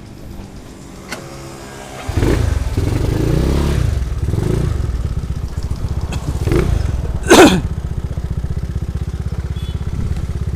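Motorcycle engine starting about two seconds in and revved a few times, rising and falling, then settling into a steady idle. Just past the middle there is one short, loud burst.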